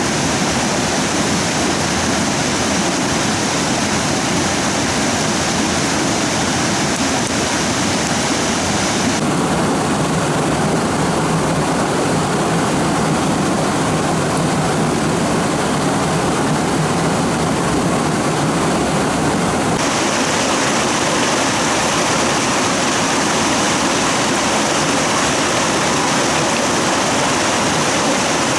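Steady rush of a fast-flowing stream, a dense even noise. Its higher hiss drops away about nine seconds in and comes back about twenty seconds in.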